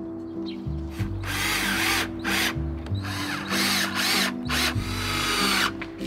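Power drill running in about five short bursts of up to a second each, its motor whine rising and falling in pitch as it speeds up and slows, over background music with a steady bass line.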